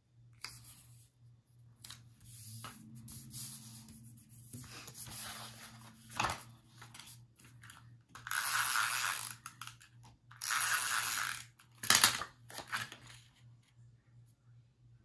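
Paper strips rustling and being handled on a cutting mat, then an adhesive tape runner drawn along a paper strip in two rasping strokes of about a second and a half each, followed by a sharp click.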